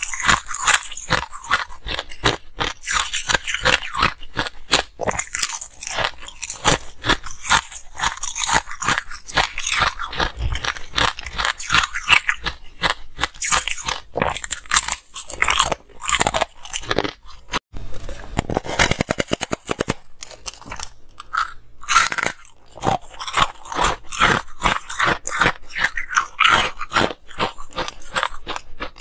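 Close-miked crunching of ice being bitten and chewed: a dense run of sharp crunches and cracks, with a spell of fast, fine crackling a little past the middle.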